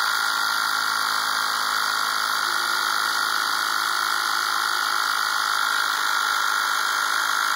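Air compressor running steadily, a loud even rush with a steady whine, feeding air pressure to a pneumatic piston lift.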